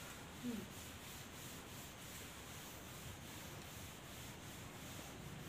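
Chalkboard duster rubbing over a chalkboard, erasing chalk in faint, quick repeated strokes, about three a second. A short hum of a voice about half a second in.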